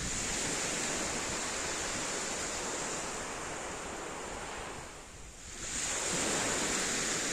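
Sea waves breaking and washing up a pebble beach: one surge from the start that fades about five seconds in, then the next wave swelling soon after.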